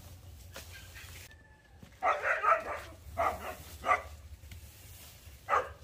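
A dog barking: several short, loud barks starting about two seconds in.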